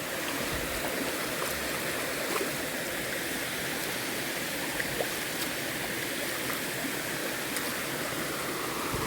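Steady rush of water from a small waterfall, splashing down into its pool.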